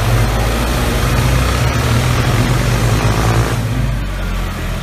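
Tractor-type engine running with a deep, steady hum. A rougher, higher layer over it drops away about three and a half seconds in, leaving a smoother idle.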